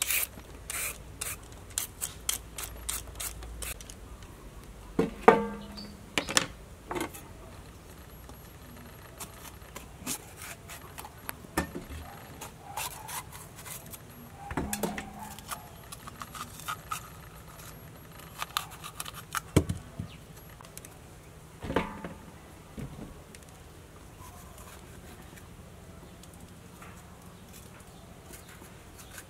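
A hand vegetable peeler scraping down a carrot in quick strokes, then a knife cutting a red bell pepper, with scattered clicks and knocks.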